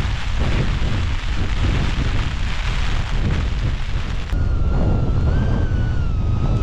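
Strong gusting wind of about 25 to 40 mph blasting the microphone as a heavy, rumbling rush. About four seconds in, the sound changes abruptly and a thin whistling tone comes in, wavering up and down in pitch.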